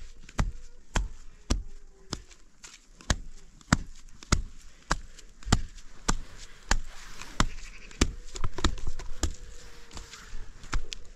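A steady series of sharp knocks, evenly spaced a little under two a second.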